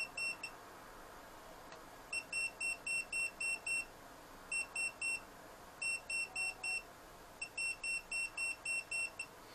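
UNI-T UT12M-EU voltage detector beeping in quick, high short pulses, about four a second, in several runs broken by short gaps. It is detecting the small magnet in a flashlight in its magnetic-field mode.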